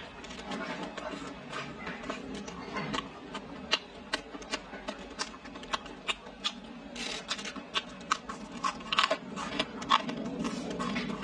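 Close-miked chewing and lip-smacking as a person eats roast pork and rice: a stream of quick, irregular wet mouth clicks.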